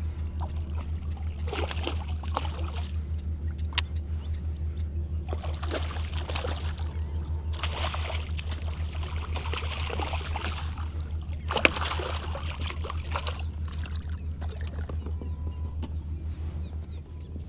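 A hooked fish thrashes and splashes at the water's surface beside the boat in several bursts, with two sharp clicks among them. Underneath runs a steady low hum with an even pulse.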